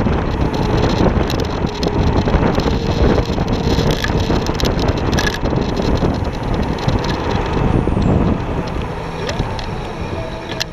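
Wind buffeting the microphone and tyre rumble from an electric scooter riding along a paved street, a loud, even rushing noise with a faint steady whine in the first half. It eases off near the end as the scooter slows.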